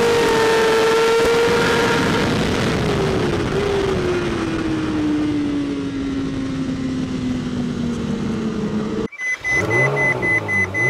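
BMW S1000RR superbike's inline-four engine heard onboard over wind rush. The engine runs at high revs, then its note falls slowly and steadily for several seconds as the revs come down. About nine seconds in it cuts off abruptly to music with electronic beeps.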